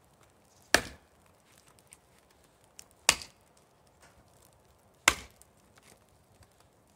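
Hults Bruk Almike hatchet chopping into a large log: sharp whacks about two seconds apart, three and a fourth right at the end. The blade kind of wants to glance off the wood, which the owner puts down to its grind.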